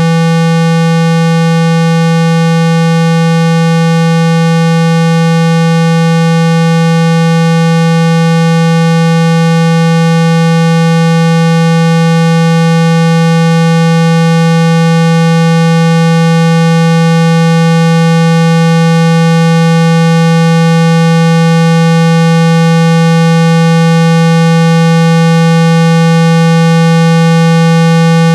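A steady, unbroken electronic tone at 165 Hz, buzzy with many overtones, played loud as a phone speaker-cleaning sound meant to shake dust and water out of the speaker.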